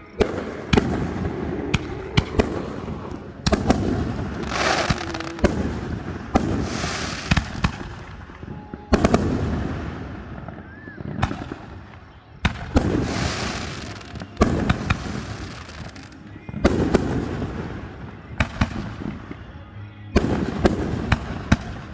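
Aerial fireworks going off one after another: sharp bangs, several in quick clusters, with crackling shells sparkling after some of the bursts.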